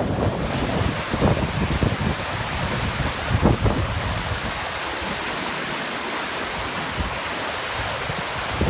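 Storm wind buffeting the microphone in irregular low rumbling gusts over a steady rushing hiss. The gusts ease off somewhat past the middle.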